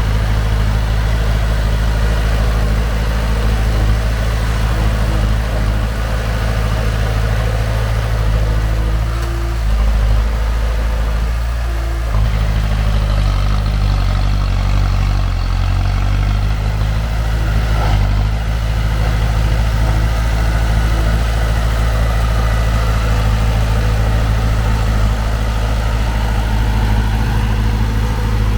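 Heavy construction-machine diesel engine running steadily, its engine speed shifting up and down a few times around the middle.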